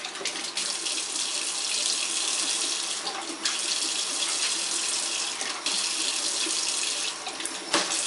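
Kitchen faucet running in a thin stream into a stainless steel sink, the water splashing off an African grey parrot bathing under it. The splashing shifts a few times as the bird moves through the stream, with one short sharp sound near the end.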